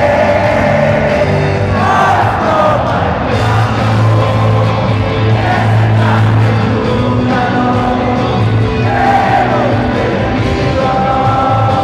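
Rock band playing live in an arena with singing over steady held bass notes, heard from among the crowd.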